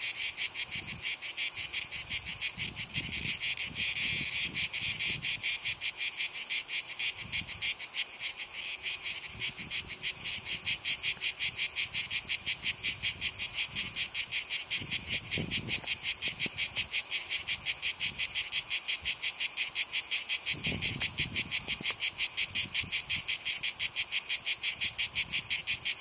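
Male Cicada orni cicadas singing: a fast, even train of rasping pulses, high-pitched and loud. The pulsing is less regular for about the first ten seconds, then settles into a steadier, slightly louder rhythm.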